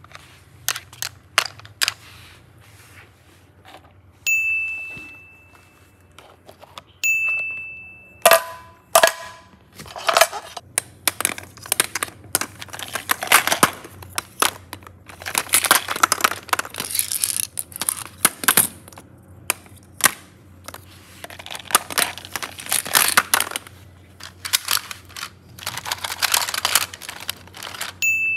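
Slime being handled and pressed, giving irregular crinkling, crackling bursts and clicks, with two short ringing dings about four and seven seconds in.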